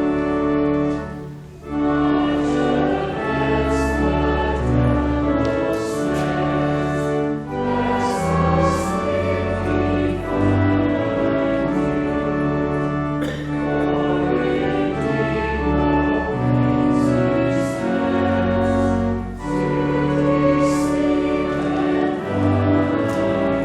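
Church music: a hymn sung over sustained chords with long held bass notes, with a short break about a second and a half in.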